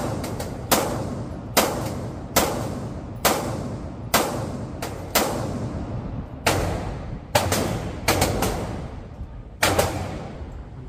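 Semi-automatic pistol fired repeatedly on an indoor range, about a dozen sharp shots mostly a second or so apart, with a quick string of three shots about eight seconds in. Each shot rings out in the concrete lane's echo.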